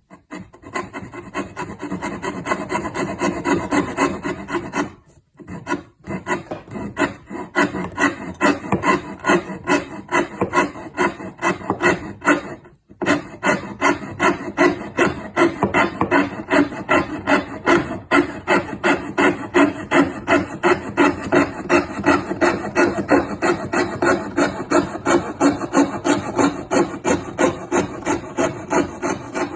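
Hand tool worked back and forth on wood in steady, even strokes, about two or three a second, with two brief pauses.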